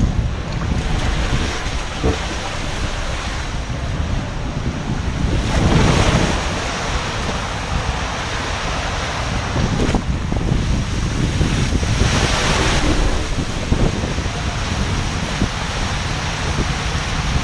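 Rushing wind buffeting a GoPro Session's microphone, together with water sluicing along a water slide, during a fast ride down it. The rush swells louder about six seconds in and again around twelve.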